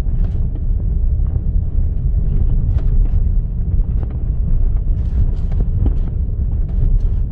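Jeep driving on a rough dirt road, heard from inside the cabin: a steady low rumble of tyres and engine with scattered knocks and rattles.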